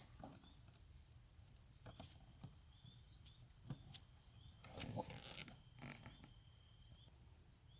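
Insects buzzing in a steady high-pitched chorus, dropping in level about seven seconds in, with a few faint clicks and rustles from handling.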